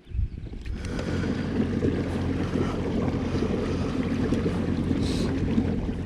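Steady rushing wind-and-water noise out on the water in a kayak, starting suddenly just after the start and ending near the end.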